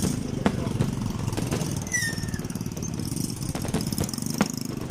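A motor vehicle engine running steadily, with a few faint clicks and a short high chirp about two seconds in.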